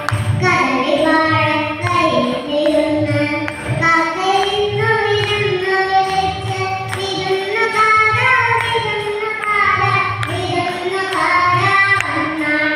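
A young girl singing a melodic song into a handheld microphone, amplified through a PA, over backing music with a steady bass beat.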